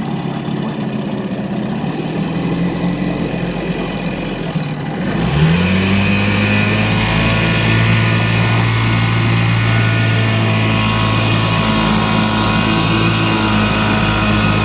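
3 hp Johnson two-stroke outboard motor running in a test tank while it warms up: idling steadily, then speeding up quickly about five seconds in and holding a higher, steady speed.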